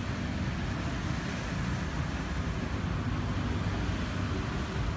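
Steady low mechanical rumble with a faint hum, heard inside a car's cabin.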